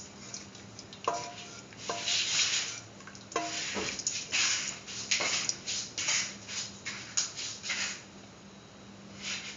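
Spatula stirring and scraping through a thick, wet mung bean and vermicelli mixture in a pan, in irregular strokes, mixing in sugar. A few strokes knock the pan, which rings briefly.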